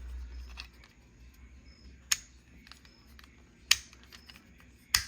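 Snap Cart magnetic fidget slider being slid and snapping into place, giving three sharp clicks about a second and a half apart, with a few fainter ticks and handling rustle before them.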